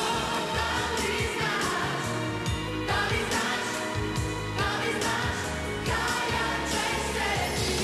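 A Croatian-language pop song: a woman sings the lead over a full band backing with a steady drum beat.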